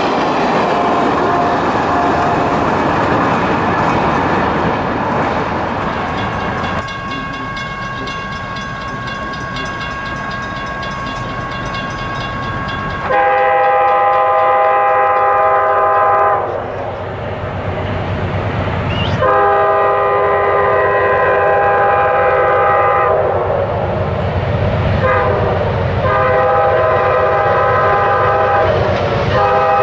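Train noise for the first several seconds, then a diesel locomotive's multi-note air horn sounding the grade-crossing signal: two long blasts, a short one, and another long one.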